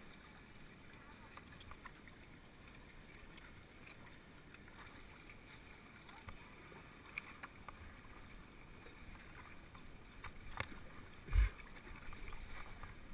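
Faint lapping and small splashes of shallow lake water, with scattered light ticks and one low thump near the end.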